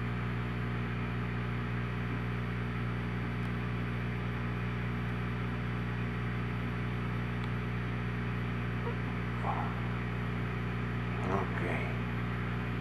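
Steady low electrical hum made of several fixed tones, with a faint hiss over it. Two brief, faint sounds come near the end.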